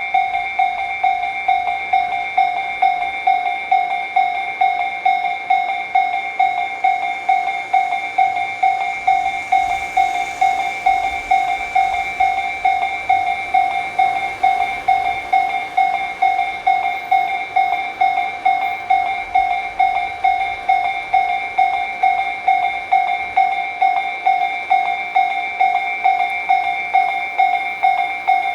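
Japanese railroad crossing warning alarm ringing its evenly repeated 'kan-kan' bell tone, a little under two strikes a second. From about nine seconds in, a train's low rumble runs underneath.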